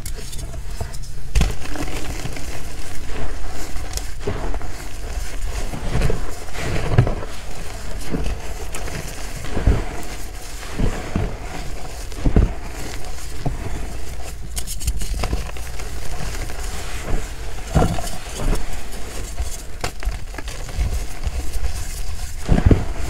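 Powdered gym chalk squeezed and crumbled between the hands: a continuous soft crackling crunch with a dull thump at each squeeze, every second or two.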